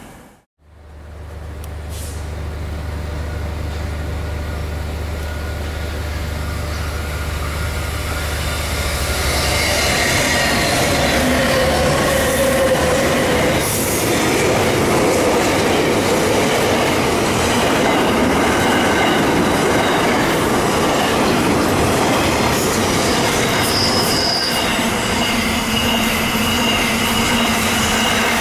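Container freight train wagons rolling past at close range, wheels rumbling over the rails with scattered high-pitched squeals. A low drone in the first several seconds gives way to the wagon noise, which builds for about ten seconds and then holds steady.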